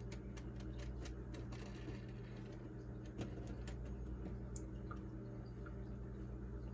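Faint scattered clicks and light handling noises, thickest in the first two seconds, over a steady low electrical hum.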